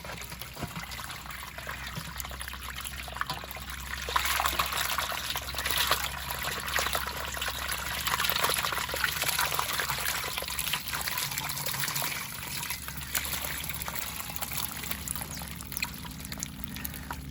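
Water trickling and splashing, with many small crackling drops, growing louder from about four seconds in and easing off again after about twelve seconds.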